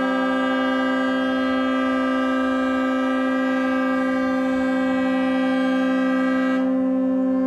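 Several barge horns sounding together in long held blasts, their different pitches overlapping into one steady, dissonant chord. Some of the higher horns cut off near the end while the lower ones keep sounding.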